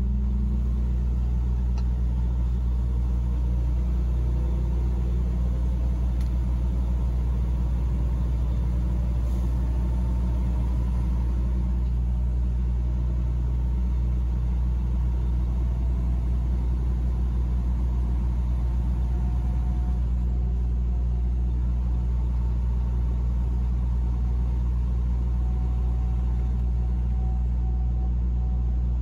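Truck's engine and road noise heard from inside the cab while driving at steady speed: an even, unbroken low drone.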